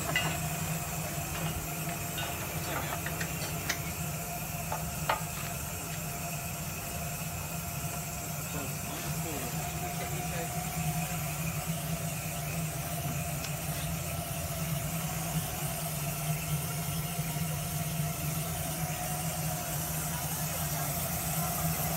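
A small engine idling steadily with an even hum, and a few light clicks in the first few seconds.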